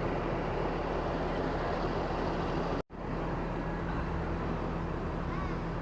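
Steady running noise of a motor vehicle, with a low hum, cut off for a split second almost three seconds in.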